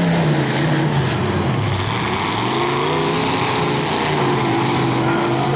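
Demolition derby car engines revving in the arena, their pitch falling away and climbing again about two seconds in, then holding.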